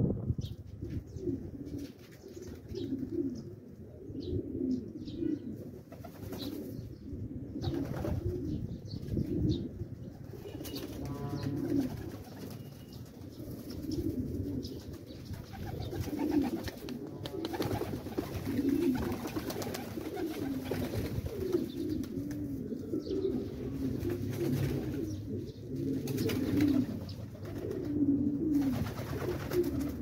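A flock of domestic pigeons cooing continuously, many low overlapping coos, with a few brief flutters of wings now and then.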